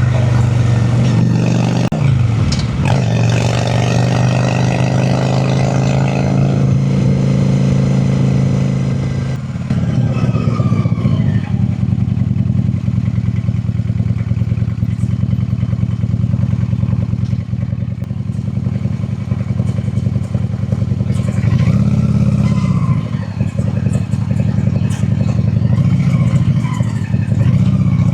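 Honda Shadow cruiser's V-twin engine running under way, a steady low pulse. Its pitch dips and climbs back about two seconds in, and the revs rise and fall briefly about 22 seconds in.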